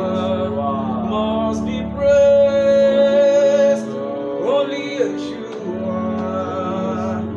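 Gospel worship music: a steady held chord underneath a voice singing long, drawn-out notes, loudest on one long held note about two seconds in.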